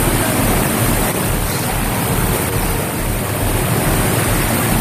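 Steady rushing of water, echoing in a concrete storm sewer tunnel, with no distinct events.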